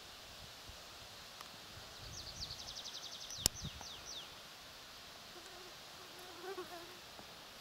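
A small songbird sings a short, fast trill of high falling notes, ending in a few slower ones, over a faint steady outdoor hiss. A single sharp click comes in the middle of the song.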